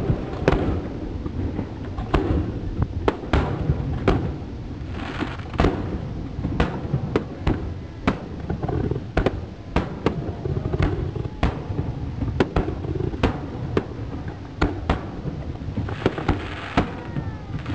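Aerial firework shells bursting in quick, irregular succession, sharp bangs one or two a second over a continuous low rumble. Crackling bursts come in about five seconds in and again near the end.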